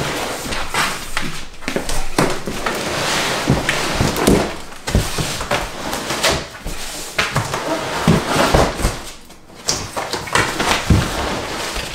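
A large cardboard box with plastic-wrapped contents being shoved and dragged across the floor: cardboard scraping and rustling, broken by repeated knocks and thumps.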